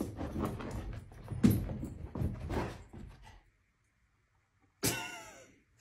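A golden retriever bounding about on carpet: scuffling with a few thumps, the loudest about a second and a half in. Near the end comes one short, sharp-starting sound that falls in pitch.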